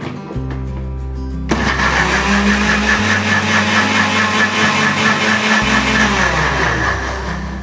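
Electric mixer grinder motor switched on about a second and a half in, running at speed as it churns curd in its jar, then slowing and stopping near the end.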